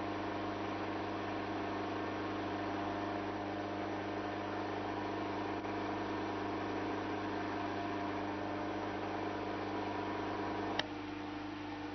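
Electric motor of a CR Clarke buffing machine running steadily, a hum with a whir of spinning buffing wheels. Near the end a sharp click, after which the higher part of the hum stops and the sound drops a little.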